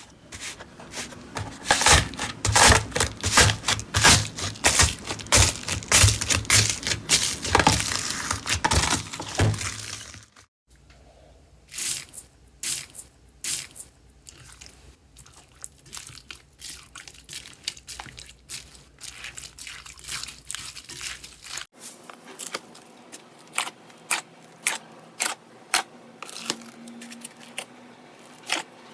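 Slime being squeezed and pressed by hand, giving dense crackling and popping clicks. About ten seconds in the sound breaks off, then comes back as sparser, softer pops and clicks.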